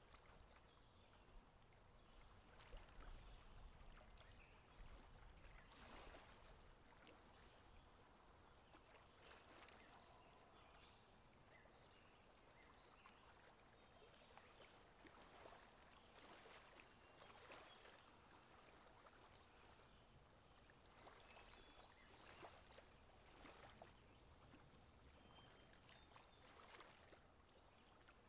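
Faint running river water, with soft irregular splashes every second or two.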